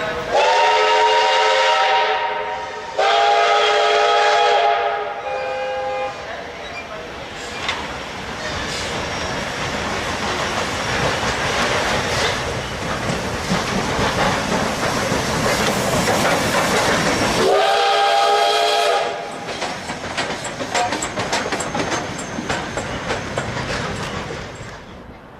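Steam locomotive whistle sounding a chord: two long blasts and a short one, then the train running past with wheels clattering over the rail joints. Another long whistle blast comes about two-thirds through, followed by the clatter of the passing cars, which drops away near the end.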